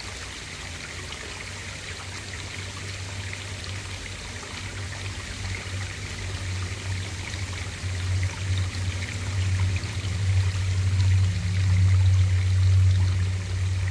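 Pond water running and trickling, heard through a camera submerged in the pond, with a low steady hum underneath that grows louder over the last several seconds.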